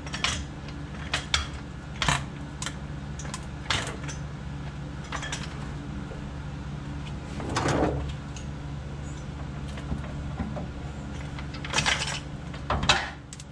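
Scattered metal clicks and knocks from hand tools and a floor jack being handled under a car, with one longer noisy sound a little past halfway and a cluster of knocks near the end, over a steady low hum.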